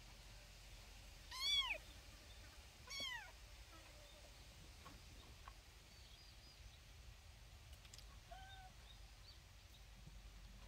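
Kitten meowing: two high, arching meows about a second and a half apart, then a faint short one near the end.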